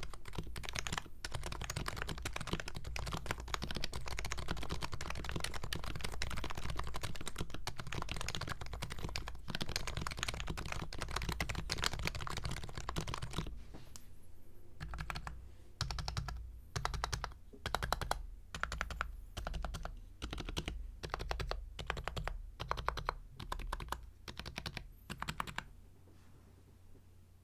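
HHKB Professional 2 Topre keyboard with BKE Redux Ultralight domes, lubed and fitted with silencing rings, being typed on: fast continuous typing, which about halfway through turns into short separate bursts of keystrokes roughly a second apart, stopping near the end.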